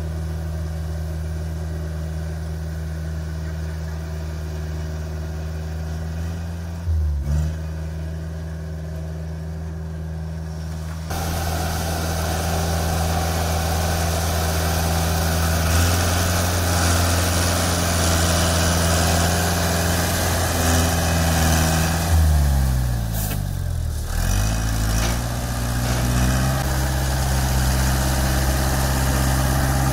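Articulated 4WD dumper tractor's Yunnei 90 hp diesel engine running at a steady pitch as the machine drives. The engine note dips briefly about seven seconds in, and drops more deeply around twenty-three seconds in before picking back up.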